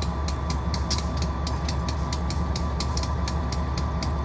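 Railroad grade-crossing bell ringing steadily at about four to five strikes a second, over the low rumble of a slow-moving freight train.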